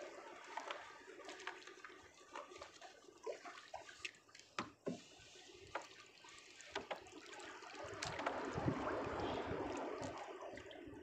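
Water splashing and pouring as a plastic bucket is dipped over the side of a boat and filled, starting about eight seconds in. Before that, scattered light knocks and clatter.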